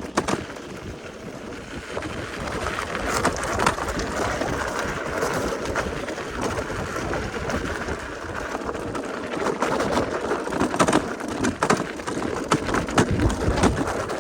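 Bike rolling downhill over a gravel logging road: steady tyre and wind noise with frequent sharp knocks and clunks from the suspension over bumps, the bangy, slammy suspension noise the rider is showing.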